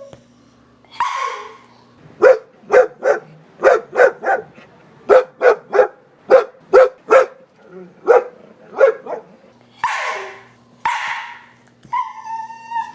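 A dog barking: a run of about fifteen short, sharp barks at roughly two a second, with longer drawn-out calls about a second in and twice near the end, and a brief high whine just before the end.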